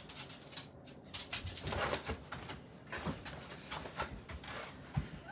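A dog jumping up onto canvas fabric spread over a table and moving about on it: the canvas rustles in a run of bursts, with a thump near the end.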